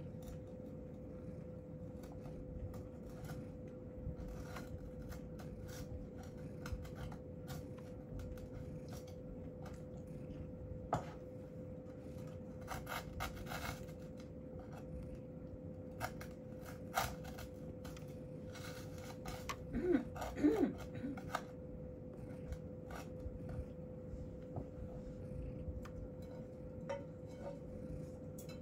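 Steady low electrical hum with many small, scattered clicks and ticks, and a brief soft pitched sound about twenty seconds in.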